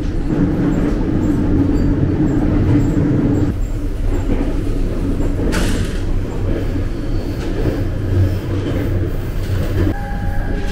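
Running noise of a JR Kyushu 787 series express train heard from inside the car: a steady low rumble with a hum that drops away a few seconds in. A brief hiss comes about halfway through.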